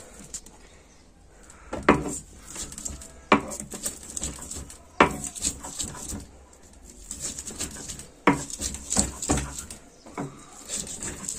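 Hand-held grinding stone (lohoro) knocking and rolling on a flat stone slab (silauto), crushing garlic cloves and ginger: hard stone-on-stone knocks every second or two, about seven in all, with quieter gritty scraping between them.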